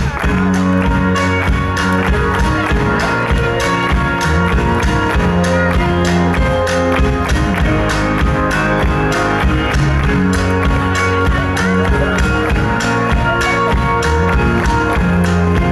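Live band playing an instrumental passage: held chords over a steady beat, with no singing.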